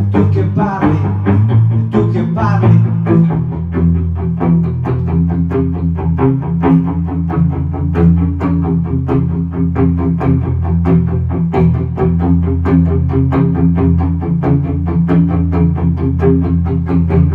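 Instrumental break of a pop song: guitar picking steady, evenly repeating notes over a sustained bass line, with a couple of gliding notes in the first few seconds.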